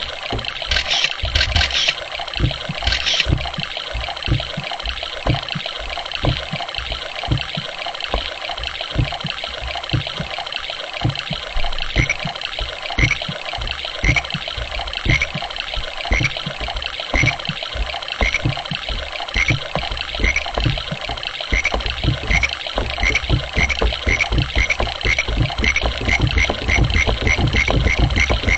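Water sound effects played as a performance: a running, gurgling water sound with frequent low knocks. From about halfway a short high chirp repeats about once a second, speeding up toward the end. A low drone joins in about three-quarters of the way through.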